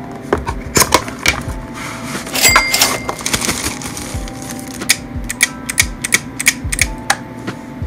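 Long acrylic fingernails tapping and clicking irregularly on a cardboard box and a small plastic toaster-shaped lamp while it is unpacked, with a short crinkle of plastic wrapping about two and a half seconds in.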